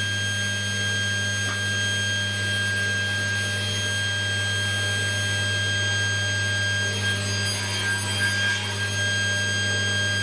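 Table saw running freely with no cut: a steady motor hum with a constant high whine from the spinning blade.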